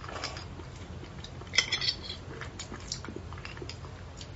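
Light clicks and taps from handling a hollow beef marrow bone and a thin stick used to dig out the marrow, with a louder, sharper clatter about a second and a half in.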